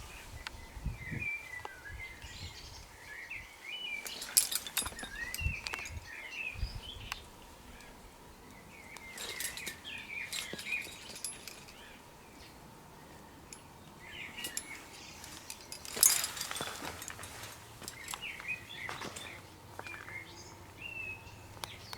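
Small birds chirping and twittering in short, scattered bursts. A few sharp clicks break in now and then, the loudest about two-thirds of the way through.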